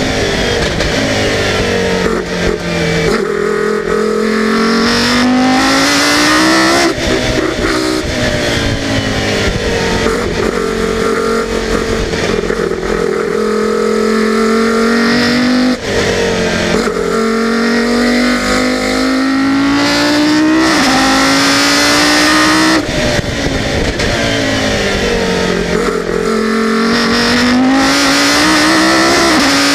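Volvo 850 BTCC touring car's two-litre five-cylinder race engine heard on board, lapping hard. It climbs in pitch under acceleration with sudden drops at each sequential-gearbox upshift, then falls away under braking and downshifts into the corners, over and over.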